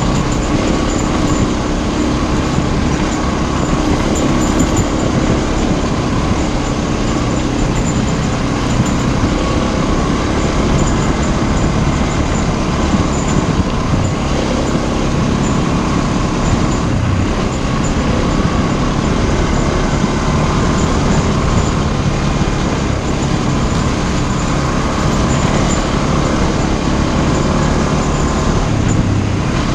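Motorcycle engine running steadily while riding over a gravel forest road, with tyre and road noise from the loose surface mixed in.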